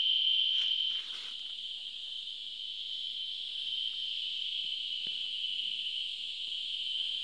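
Steady high-pitched drone of insects in the forest canopy, unbroken, with a couple of faint rustles about a second in.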